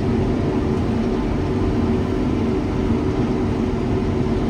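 Combine harvester running steadily while cutting spring barley: an even engine and machinery drone with a constant hum.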